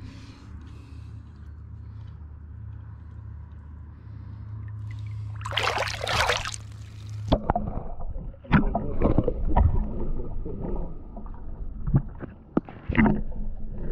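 A steady low hum with light water noise, then a splash about five and a half seconds in as the camera goes under the sea surface. After that comes muffled underwater gurgling with irregular knocks and bumps against the camera.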